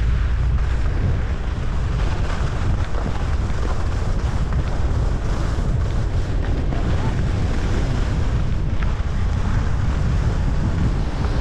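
Wind rushing over a body-worn camera's microphone while skiing downhill, a steady low buffeting rumble, with the hiss of skis sliding over packed, tracked snow.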